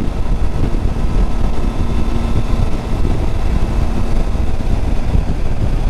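Triumph Tiger 800 motorcycle's three-cylinder engine running steadily at road speed, under heavy wind rumble on the microphone.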